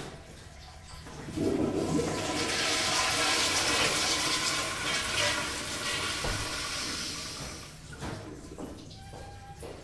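Toilet flushing in a public restroom. A loud rush of water starts about a second in, holds for several seconds, then dies away about eight seconds in.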